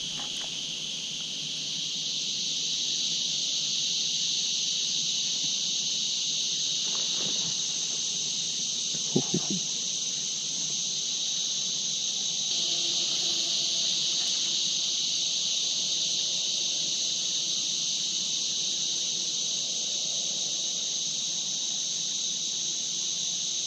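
A steady, high-pitched chorus of insects that carries on without a break. A single short, sharp sound stands out above it about nine seconds in.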